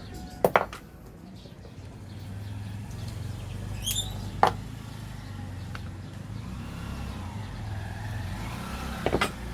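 Sharp clicks and taps of small metal tools and parts being handled, three times: about half a second in, midway, and a double click near the end, over a steady low rumble.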